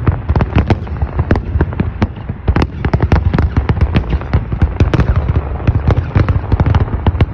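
Large aerial fireworks display: many shells bursting in a dense, overlapping barrage of bangs, several a second, over a steady low rumble.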